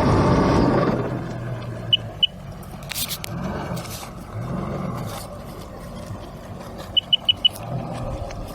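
Heavy equipment engine working under load, loud in the first second, then running lower with its pitch rising and falling several times. A few knocks and short, high peeps are heard: two about two seconds in and four in quick succession about seven seconds in.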